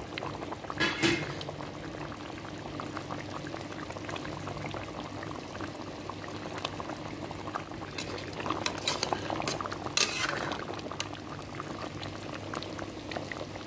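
Thick chicken curry bubbling at a simmer in a pot: a steady soft hiss with many small bubble pops, and a few louder pops about a second in and again around eight to ten seconds in.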